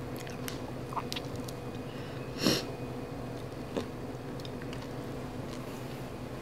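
Fingers peeling a raw shrimp: small wet clicks and crackles of the shell and flesh being pulled apart, with one brief louder burst of noise about two and a half seconds in.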